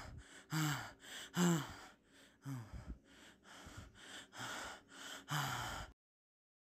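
A teenage boy gasping and panting hard, startled awake: about seven sharp breaths roughly a second apart, several with a short falling catch in the voice. The sound cuts off suddenly near the end.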